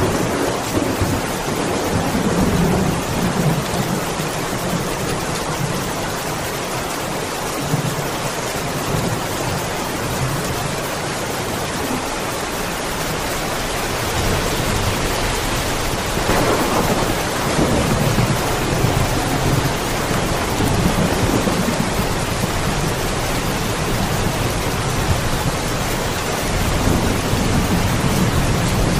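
Steady rain hissing, with low rolling thunder that swells and fades several times: near the start, most strongly a little past halfway, and again near the end.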